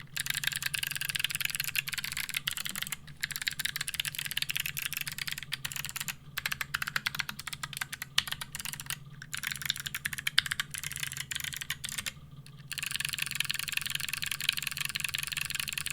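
Fast typing on a Geonworks F1-8X V2 mechanical keyboard built with clicky switches on a brass plate: a dense stream of sharp key clicks, broken by brief pauses about every three seconds.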